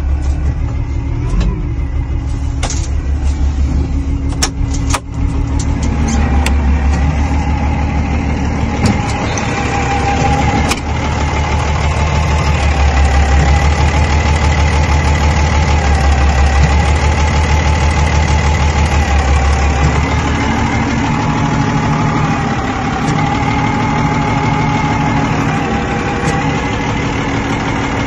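Diesel engine of a Kalmar DCE 120-6 heavy forklift running, with a few sharp knocks in the first five seconds; it rises in speed and level about six seconds in, holds there until about twenty seconds, then drops back toward idle.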